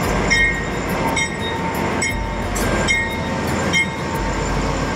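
An Amtrak GE Genesis diesel locomotive pulls slowly out of the station with its bell ringing in a steady rhythm, a little more than once a second, over the rumble of the engine and the wheels on the rails.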